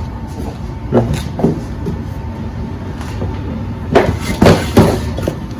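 A few knocks about a second in, then a louder cluster of three or four knocks near the end, over a steady low hum.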